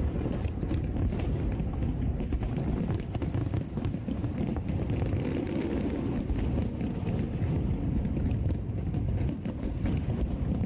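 Fireworks going off in a dense barrage: a continuous low rumble of booms with many sharp bangs and crackles layered over it.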